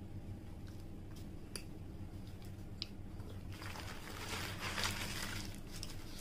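Paper burger wrapper crumpled by hand into a ball: a rustling crinkle for about two seconds midway, after a few small clicks.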